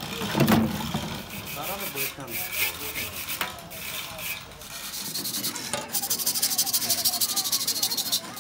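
Irregular knocks and scrapes of hand work on a radiator. About five seconds in they give way to a fast, even run of rasping back-and-forth strokes, about six a second, as a tool is rubbed over the metal.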